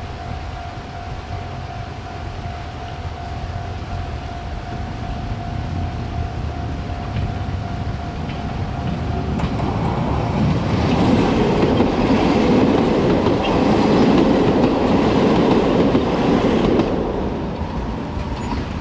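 Kobe Electric Railway train passing over a level crossing, its wheels clattering over the rails. The sound builds about halfway through, is loudest for several seconds, then eases near the end. Before the train arrives, a steady high tone from the crossing's warning signal is heard.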